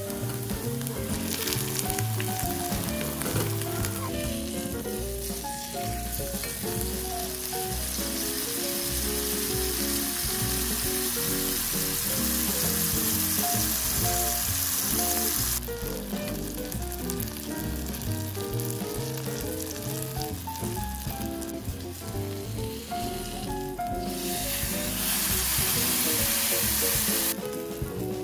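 A salted Spanish mackerel steak sizzling as it pan-fries in a little oil in a nonstick frying pan, a steady hiss that breaks off abruptly about halfway through and returns for a few seconds later. Light background music plays underneath.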